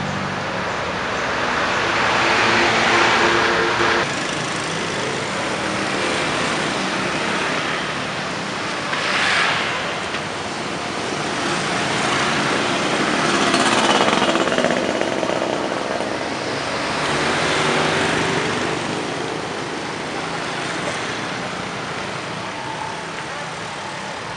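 Street traffic: a steady background hum with passing motor vehicles swelling and fading every few seconds.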